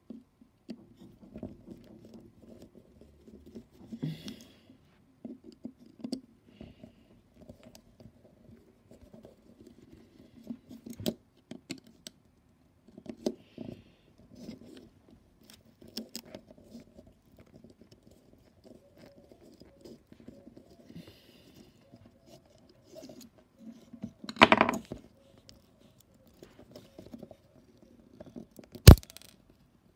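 A small screwdriver working screws out of a plastic speaker panel: scattered light scrapes and ticks of metal on screw heads and plastic. There is a louder clatter about 24 seconds in, and a single sharp click about a second before the end.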